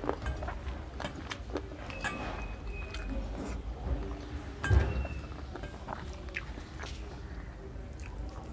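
A person chewing and eating a meal of watered rice and chicken curry, with small wet clicks throughout and one louder knock about five seconds in.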